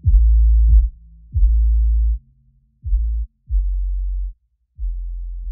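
Background electronic music: deep bass notes with sharp attacks, about five of them, each under a second long, getting quieter toward the end.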